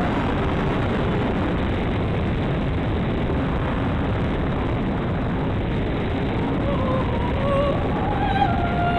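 Dynam P-51 RC plane in flight: heavy wind rush buffeting the onboard microphone over the steady whine of its electric motor and propeller. Near the end the whine comes through more clearly and steps up in pitch as the throttle changes.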